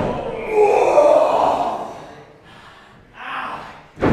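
Voices crying out in a drawn-out reaction that falls in pitch, followed about three seconds in by a shorter cry.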